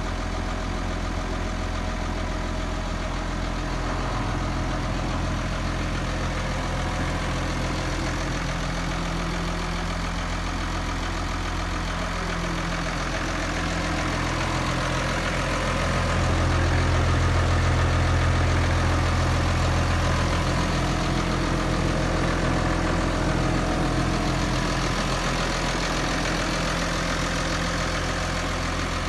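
New Holland T7030 tractor's six-cylinder diesel engine idling steadily, growing a little louder for a few seconds past the middle without changing speed.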